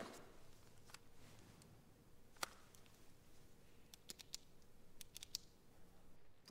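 Near silence broken by a few small, sharp clicks: a lone one about two and a half seconds in, then a scattered run of them between about four and five and a half seconds.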